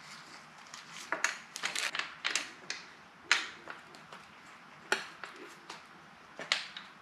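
Light, irregular clicks and taps of a new gasket being pressed into the rim of an automatic transmission oil pan, and of the pan being handled on the bench.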